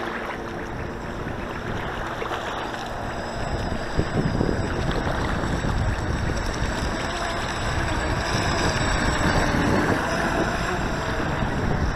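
Wind buffeting the microphone, with the faint high whine of an RC race boat's electric motor rising and falling in pitch as the boat runs across the water at part throttle.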